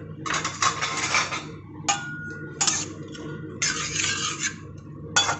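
Metal spatula scraping and stirring raisins frying in ghee around a steel kadhai, in a series of separate strokes.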